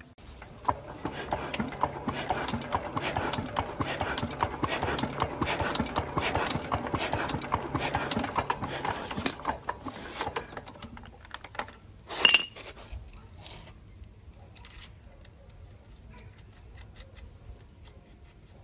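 Small metal engine parts and tools clicking and rattling in the hands as a fuel pipe and its fittings are handled, with rapid dense clicks that thin out, and one loud sharp metallic clink that rings briefly near the middle.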